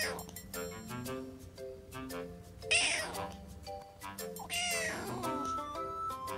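A tabby kitten meowing twice, high calls that fall in pitch, the first nearly three seconds in and the second, longer one about a second and a half later.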